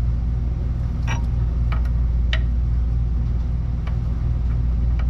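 A steady low machine hum runs throughout. Over it come a few light, sharp metallic clicks, spread over the first four seconds, from small brake parts and tools being handled.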